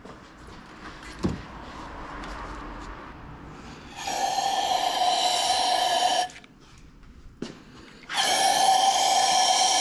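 A motor-driven tool or machine runs in two bursts of a few seconds each, making a steady high whine. A single knock comes before them.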